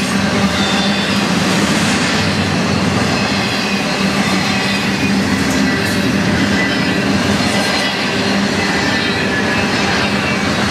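Double-stack intermodal train's loaded container well cars rolling past steadily on a curve: steel wheels running on the rails, with faint high wheel squeal.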